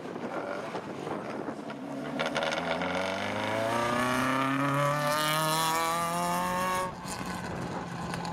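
Volkswagen Golf Mk1 rally car's engine accelerating hard as the car passes, its note climbing steadily in pitch for several seconds. About seven seconds in it drops off abruptly as the throttle is lifted, leaving a lower, steadier note.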